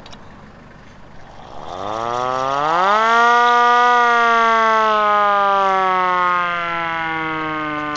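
Old Japanese fire-truck hand-crank siren being cranked by hand: about a second and a half in, its wail rises steeply in pitch to a peak, then slowly slides down.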